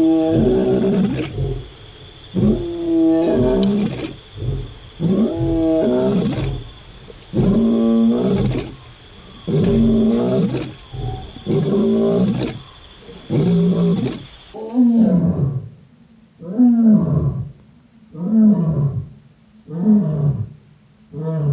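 A lion roaring in a bout: long, deep roars about every two seconds. After a change in the recording about two-thirds of the way in, they give way to shorter, quicker calls that fall in pitch.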